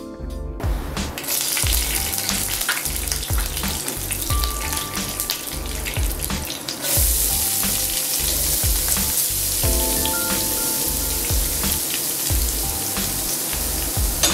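Hot oil sizzling and crackling in a nonstick frying pan, with a busy patter of small pops; the sizzle grows louder about seven seconds in. Background music with a steady beat plays along.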